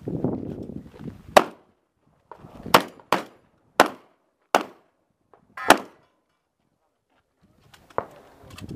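Handgun shots on a practical shooting stage: about six sharp, unevenly spaced shots, two of them close together about three seconds in, then a fainter shot near the end. A rustling noise comes before the first shot.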